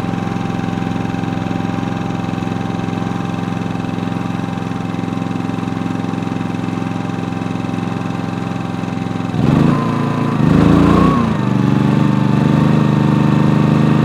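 Yamaha EF2400iSHC inverter generator's single-cylinder four-stroke engine running steadily under the RV air conditioner's fan load. About nine and a half seconds in, the AC compressor kicks on and the engine ramps up, louder, with a brief wobble in pitch, then settles at a steady speed slightly above its idle speed. It takes the compressor start easily, with no overload, with the help of a Supco hard start capacitor.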